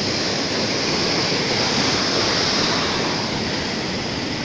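Steady rushing noise of sea waves and wind buffeting the microphone, swelling slightly in the middle.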